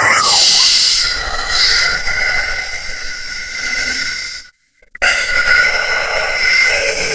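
Ghost-whisper sound effect: breathy, hissing whispers with steady ringing tones running through them, in two passes split by a short silence about four and a half seconds in.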